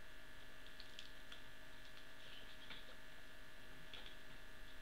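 Steady electrical hum, with a few faint small clicks and a soft rustle over it.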